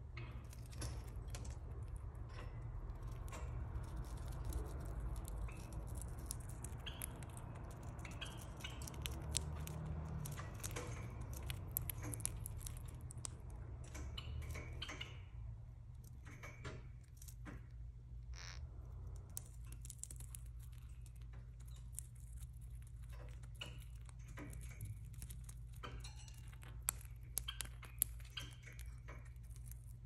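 A parrotlet's beak tearing and crunching a dried red chili pepper: a string of small, irregular clicks and crackles, with a few sharper snaps near the end.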